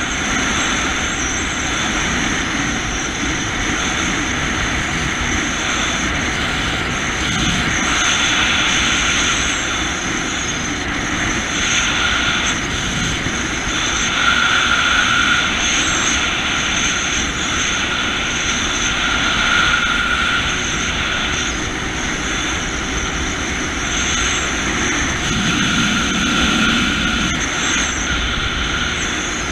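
Jet ski engine running steadily while the craft cruises on open water, with a whine that swells and fades several times.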